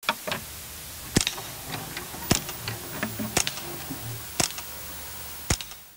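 A series of sharp clicks, about one a second, over a low steady hum, with softer clicks and low thumps in between. The sound cuts off suddenly at the end.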